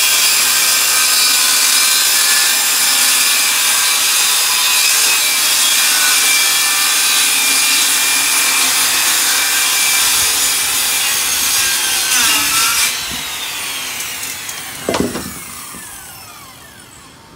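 Corded circular saw cutting through a sheet of plywood subfloor, a steady whine with the blade in the wood. About 13 seconds in the motor cuts off and the blade spins down with a falling whine, and a sharp knock sounds about two seconds later.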